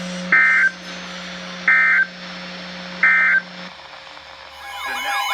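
EAS end-of-message data burst sent three times over a weather radio's speaker: three short screeching digital bursts about a second and a half apart, marking the end of the flood warning broadcast. Near the end a loud warbling, siren-like alarm tone begins.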